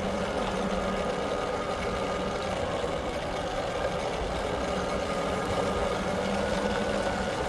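Steady mechanical hum, like an engine running at idle, with a constant low drone and a fainter higher tone that do not change.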